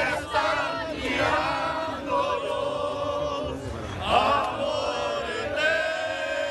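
Large crowd of protesters chanting slogans in unison, many voices drawing out the syllables.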